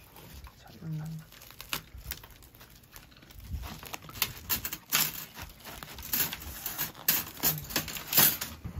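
Paper crinkling and a knife scraping as a rack of grilled ribs is cut apart on a paper sheet: a run of short crackling rustles, busiest in the second half.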